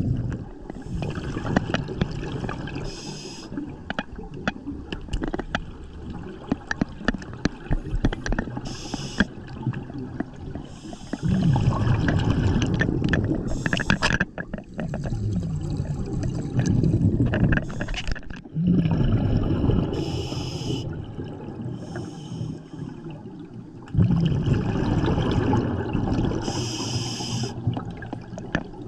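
Scuba regulator breathing underwater: a short hiss on each inhale and a longer rush of exhaled bubbles, repeating every few seconds.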